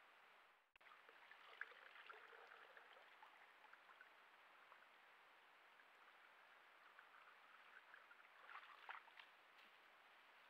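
Faint splashing and sloshing of water as a black bear wades in a shallow pool, with a denser cluster of splashes and rustles near the end as it climbs out onto dry leaves, over a steady hiss.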